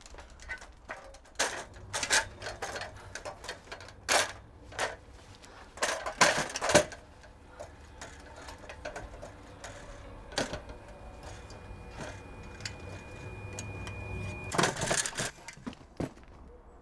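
Aluminium ladder clanking and knocking as it is handled and climbed: irregular sharp metallic knocks in clusters, the loudest about six seconds in, with another burst near the end.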